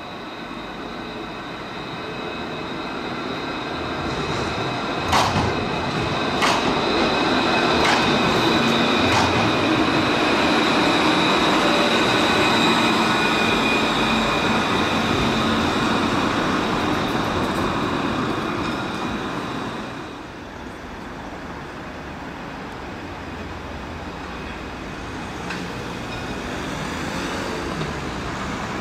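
Alstom Citadis tram running past on street track, growing louder to a peak and then fading, with a high steady whine over the rumble of the wheels. Four sharp clacks come about five to nine seconds in as the wheels run over the junction's rail joints. After a sudden drop it settles to the quieter sound of another tram approaching.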